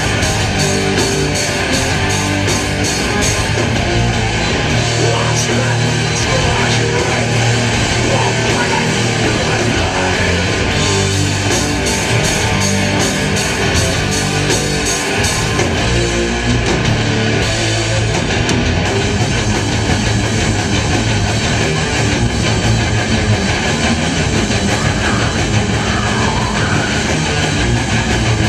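Heavy metal band playing live: distorted electric guitars, bass and drum kit, with fast, even cymbal strikes during two stretches.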